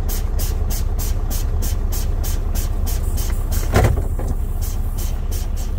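A semi truck's diesel engine idling, heard from inside the cab, with a fast, regular ticking. About four seconds in there is a short rush of air as the brake pedal is pumped to bleed down air pressure for the low-air-pressure warning test.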